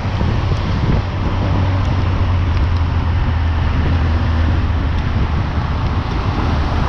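Motorcycle engine running steadily at road speed, under heavy wind and road noise.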